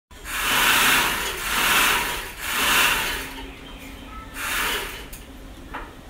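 Sewing machine running in short bursts, a whirring run of about a second each: three in quick succession, then a pause and a fourth. A short click near the end.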